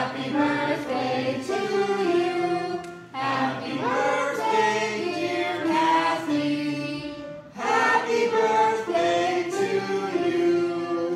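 A congregation singing with upright piano accompaniment, in three phrases with short breaks between them.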